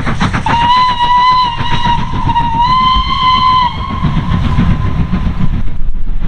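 Steam locomotive whistle: one long call of about three seconds that dips briefly in the middle and comes back slightly higher. Under it is the rumble of the running train, with rhythmic exhaust beats at the start.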